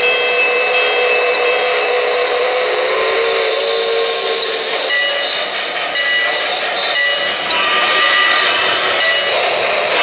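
K-Line J1e Hudson 3-rail O-gauge model steam locomotive running past close by: a steady rolling noise from its wheels on the track, with thin high tones coming and going over it.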